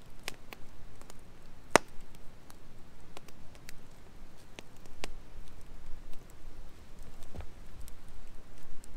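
Wood campfire crackling, with irregular sharp pops, the loudest about two seconds in, and a dull thump near the end.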